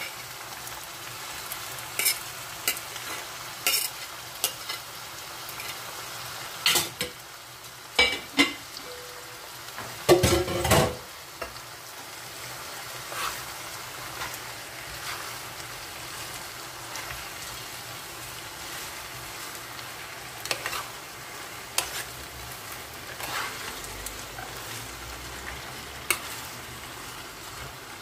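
Diced bell peppers and leafy greens frying in a pan, a steady sizzle, while a spoon stirs and scrapes them and knocks against the pan many times, the loudest clatter about ten seconds in.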